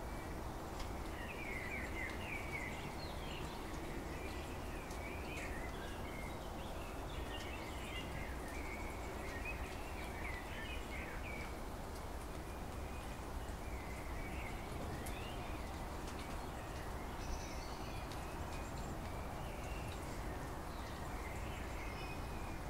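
Wild birds chirping in many short, scattered calls over a steady rushing background noise.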